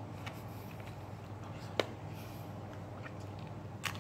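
A person chewing a mouthful of food, with faint mouth noises and two sharp clicks, about two seconds in and again near the end.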